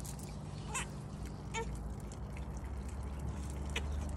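Water from a homemade fountain trickling over a rock and running down a steel post, with a few separate drips splashing.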